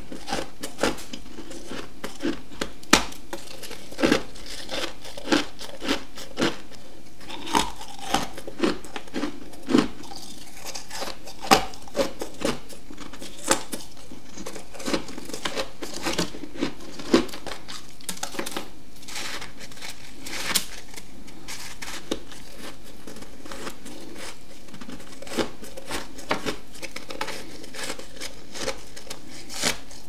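Close-up crunching bites and chewing of deep-freezer frost (humidifier frost), a run of sharp crisp crunches. They come thick and fast through the first half and grow sparse after about eighteen seconds.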